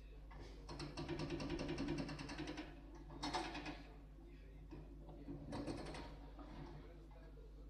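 JCB backhoe loader's diesel engine running, rising in three bursts of fast rattling clatter as its arm works the bucket into a brick wall; the longest burst comes about a second in.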